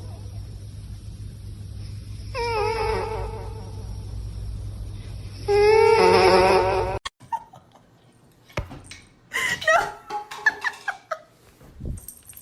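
A pet cries in two long, wavering calls, the second louder, over a steady low hum, and the sound cuts off abruptly about seven seconds in. After that come scattered knocks and short, higher cries.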